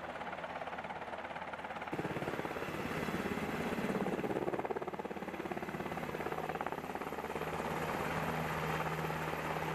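UH-60 Black Hawk helicopter's main rotor beating rapidly over its engines while it hovers low and settles onto the ramp. The sound gets fuller about two seconds in.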